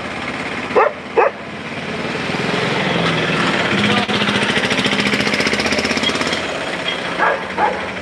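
A dog barks twice about a second in and twice more near the end, over a vehicle engine idling steadily.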